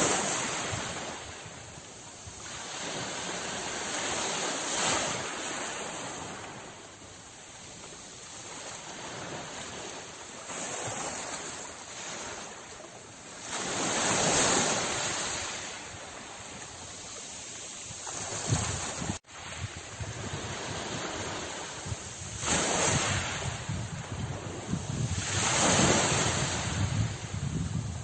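Sea waves breaking and washing ashore, swelling and falling away every few seconds, with a momentary gap about two-thirds of the way through.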